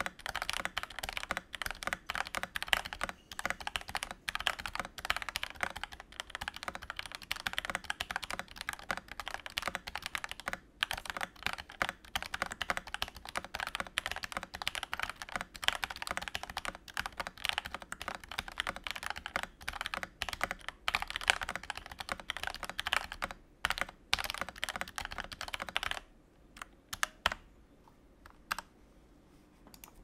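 Fast typing on a Gamakay LK67 65% mechanical keyboard with Gateron Pro Yellow linear switches, an aluminium plate and a PE foam mod: a dense run of keystrokes with a top-out clack on the upstroke, which the owner puts down to the Pro Yellows. The typing stops near the end, leaving a few single key presses.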